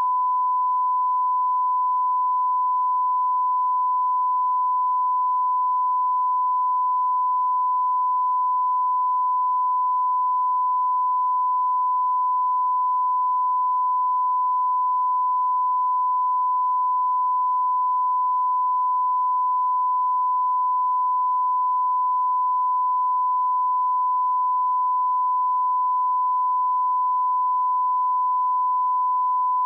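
Broadcast line-up test tone: a single steady 1 kHz sine tone held at a constant level, the reference signal that runs with colour bars at the head of a tape for aligning audio levels.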